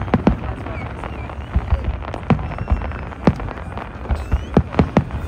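New Year's Eve fireworks and firecrackers going off: about a dozen sharp, irregularly spaced bangs, some close and loud, over a steady low rumble of more distant explosions.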